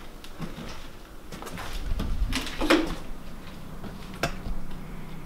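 Scattered clicks and knocks, with a heavier thud a little over two seconds in and a sharp click near the end.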